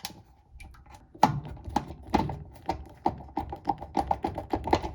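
A run of sharp clicks and taps starting about a second in and coming faster toward the end: a new washer lid switch being screwed into place with Phillips screws.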